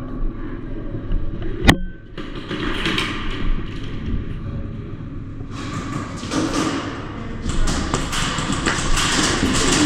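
Thuds and rustling from an airsoft player moving with gear on, with one sharp crack about two seconds in.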